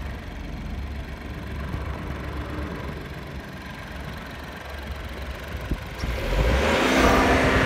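2019 Audi A3's engine idling, heard from the open engine bay, then revved about six seconds in, growing much louder with a rising note.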